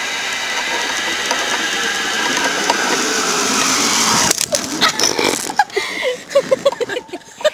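Zip-line pulley running along a steel cable: a steady whirring hum that grows louder as the rider approaches, then stops abruptly about four seconds in. After it come scattered clicks and knocks and a few short voice sounds.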